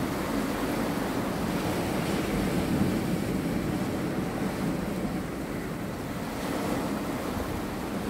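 Sea waves washing in over flat, layered rock ledges at the shoreline: a steady wash of surf, easing a little past the middle.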